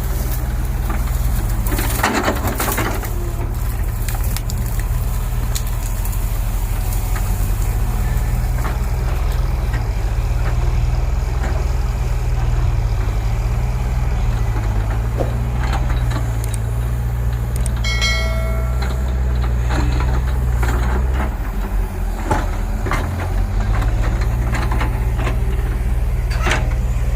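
Heavy diesel earth-moving machine engine running steadily under load, with a brief clatter about two seconds in, a short high tone just past the middle, and a momentary drop in engine note a few seconds later.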